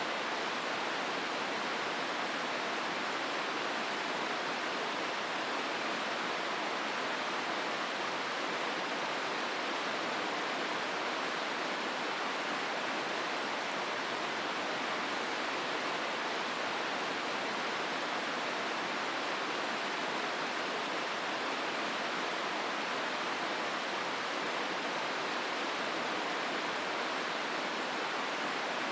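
Steady rush of river water flowing through a rocky gorge: the Hozu River, even and unbroken throughout.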